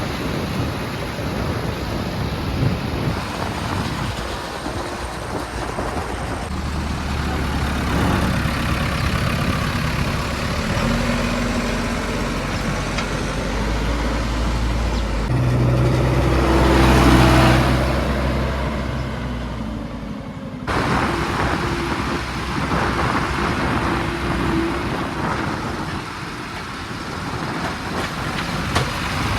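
JCB 3DX backhoe loader's diesel engine running under load, its low hum building in the middle with a louder surge, then cutting abruptly to a steadier run about two-thirds of the way through.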